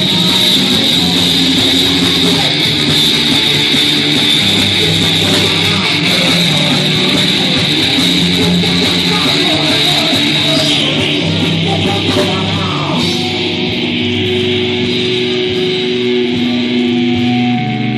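Rock band music led by guitar, loud and full. About thirteen seconds in it settles into long held chords.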